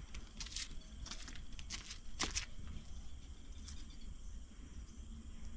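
Faint outdoor ambience: a steady insect drone over a low rumble, with a few scuffing footsteps, one louder about two seconds in.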